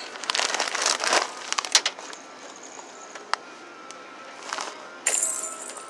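Rustling and crinkling in irregular bursts, with a single click in a quieter middle stretch and a short hiss near the end.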